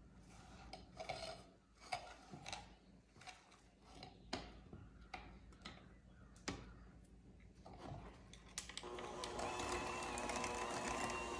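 A silicone scraper scraping and tapping against the sides of a glass mixing bowl of cream cheese mixture, in short faint strokes. About nine seconds in, an electric hand mixer starts and runs steadily, beating the mixture.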